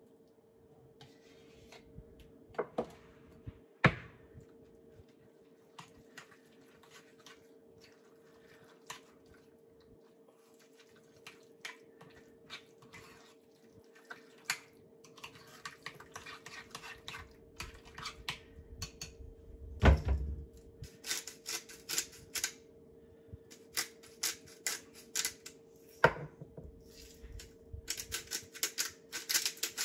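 A spoon scraping Greek yogurt out of a plastic tub and knocking against the tub and bowl, then stirring it in a bowl; a thump about twenty seconds in. Near the end, rapid crackling clicks of a spice grinder being twisted over the bowl, over a faint steady hum.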